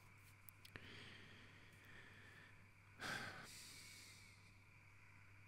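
Near silence broken by a single soft breath close to a condenser microphone about three seconds in, with a fainter breath near one second.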